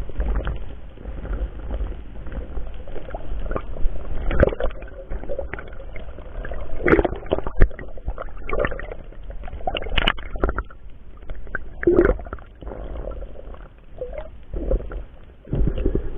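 Muffled underwater noise picked up by a submerged camera during a free dive: a low, steady rumble of moving water with irregular knocks and clicks scattered through it.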